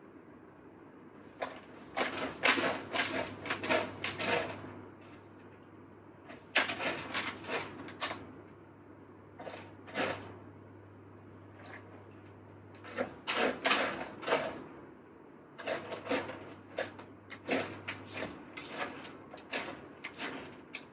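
A cat digging in a litter box, its paws raking and scraping the litter in several bursts of quick scratches with short pauses between them.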